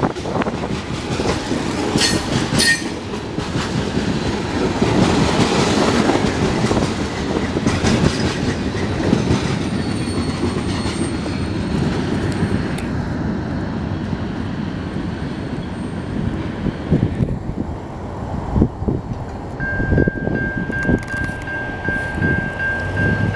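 Freight tank cars rolling past on the rails, with steady wheel clatter and a brief high wheel squeal about two seconds in. The train fades as the tail end moves off. Near the end a steady ringing tone from the grade-crossing bell starts as the gates rise.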